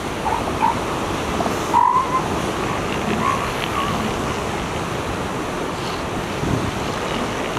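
Northern elephant seals calling from a crowded beach colony, over steady surf noise, with a few short higher calls in the first few seconds.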